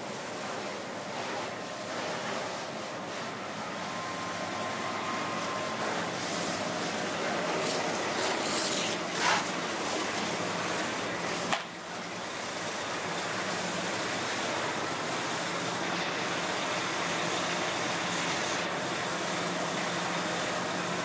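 Steady rushing noise of a car fire being fought, with an engine hum underneath that grows slowly louder. Loud hissing spurts come about eight to nine seconds in, and there is a sharp click near twelve seconds.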